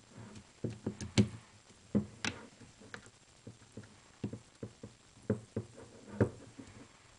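Irregular small clicks and taps of a screwdriver and plastic and metal parts being handled while a grip screw is driven back into a Smart Parts Ion paintball marker.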